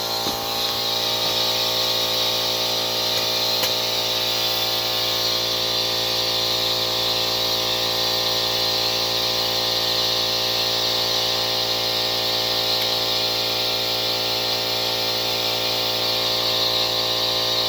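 Electric air compressor running steadily, a hum with a hiss, while it fills a portable air tank to pressure.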